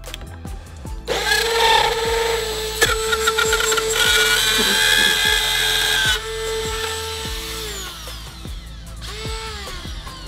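Cordless rotary tool with a small bit cutting an oval out of a sheet of starboard plastic: a high whine with gritty cutting noise from about a second in, then the motor winds down after about six seconds. Near the end it spins up briefly once more and winds down again. Background music plays underneath.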